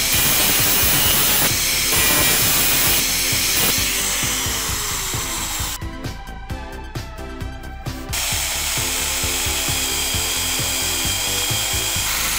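Power tool working a steel threaded rod, an angle grinder at first and an electric drill toward the end, over background music with a steady beat. The tool noise stops for about two seconds in the middle, leaving only the music.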